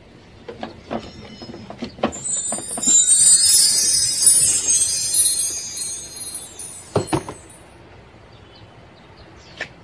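Cardboard and plastic wrap handled as a plastic-wrapped welding machine is lifted out of its box, with scattered clicks and knocks. From about two seconds in, a bright, shimmering high sound, the loudest thing here, rises and fades out by about seven seconds.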